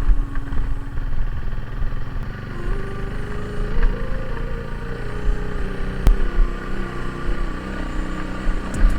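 Motorcycle engine running while riding, its pitch rising a little about three seconds in and easing back near seven seconds, with wind rumbling on the microphone. One sharp click about six seconds in.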